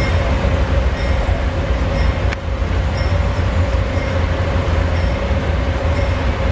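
Amtrak GE P42DC diesel locomotive running as it moves slowly away, a steady deep engine rumble with a steady whine over it. A single brief click about two seconds in.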